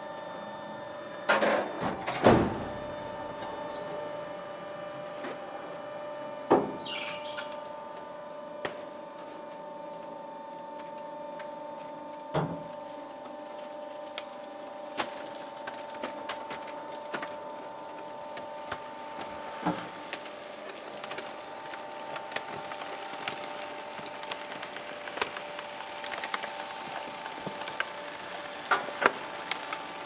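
Trash compactor crushing plastic waste: a steady machine hum with scattered sharp cracks and snaps of plastic giving way, the loudest a couple of seconds in and a cluster near the end.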